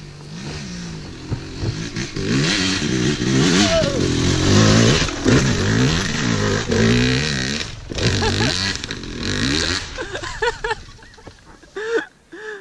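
Yamaha YZ250 two-stroke dirt bike revving hard on a steep hill climb, its pitch rising and falling again and again as the throttle is worked. It is loudest as it passes about five seconds in and fades as it climbs away near the end.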